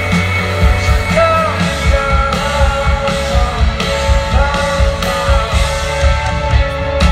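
Rock music with singing over a steady beat.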